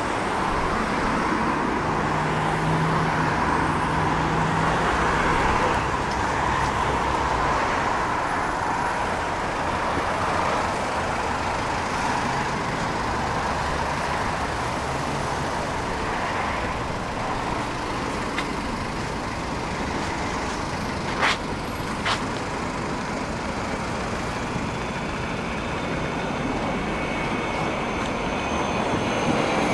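Steady city street traffic noise, with two sharp clicks about two-thirds of the way through. Near the end a tram arriving at the stop adds a rising high electric whine.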